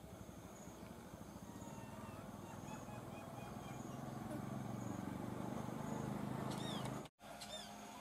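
A motor vehicle's engine hum that grows louder over several seconds, then drops out abruptly for a moment about seven seconds in. Short high bird chirps sound just before and just after the dropout.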